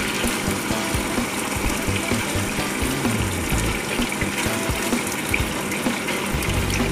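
Chunks of fresh tuna sizzling steadily in hot oil in a pot.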